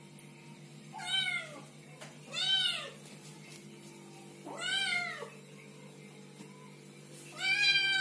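Kittens meowing: four short, high meows a second or two apart, each rising then falling in pitch, the last one the loudest.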